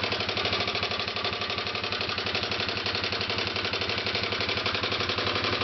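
2006 Kawasaki KLX250S single-cylinder four-stroke engine idling steadily with a rapid, even pulse. It carries a noise that the owner calls horrible and places around the crank area, with the valves already checked.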